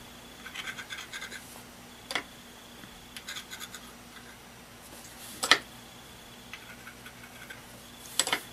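Metal-tipped stylus tool scratching and tapping against a small gourd round as it dabs on crayon wax, in short clusters of faint ticks with three sharper clicks, over a faint steady hum.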